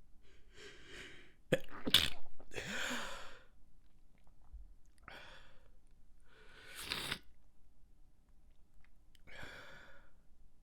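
A person's stifled sneezes: two sharp, held-in bursts about one and a half and two seconds in, then a longer breathy release. Three shorter breathy sounds follow later, at intervals of about two seconds.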